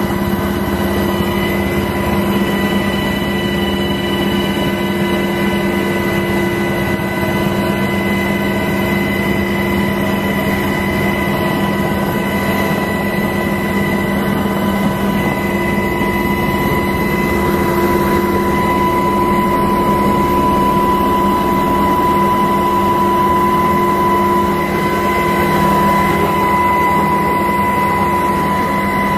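Steady drone of the aircraft carrying the camera: engine noise heard from on board, with several constant whining tones and no change in pitch.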